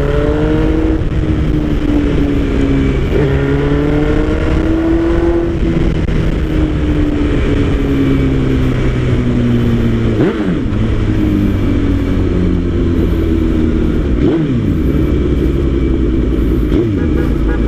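Suzuki GSX-R1000's inline-four engine running on the road, its pitch climbing and falling as the bike speeds up and eases off, with sudden changes in pitch about ten and fourteen seconds in.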